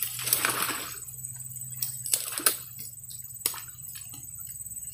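Shallow lake water splashing and sloshing: one longer splash in the first second, then a few sharp clicks and snaps.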